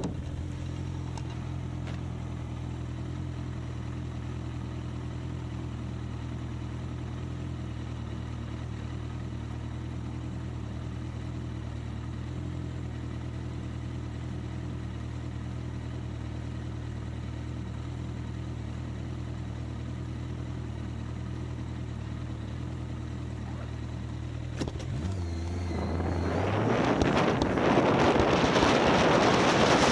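Motorcycle engine idling steadily while the bike stands still. About 25 seconds in, the engine note changes as the bike pulls away, and wind rushing over the microphone grows loud near the end.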